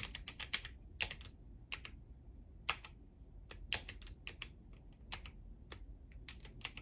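Typing on a Womier K68 mechanical keyboard with clicky Kailh Box White switches and crystal keycaps: a quick run of keystrokes, then slower, scattered key presses that stop near the end.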